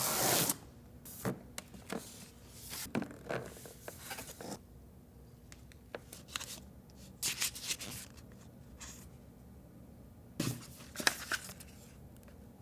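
A laptop box being unboxed: a tear of a paper or plastic strip at the start, then scattered rustles, crinkles and light knocks from the packaging being handled.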